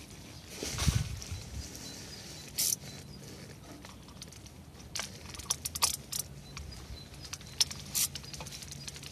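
Small socket ratchet undoing a 7 mm bolt at the transmission, with scattered clicks of the ratchet, a cluster of them in the middle, and a low knock about a second in.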